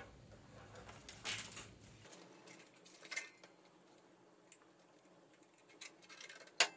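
Small knocks and rustles from handling a computer power supply, its cables and a screwdriver-bit kit, with one sharp click near the end.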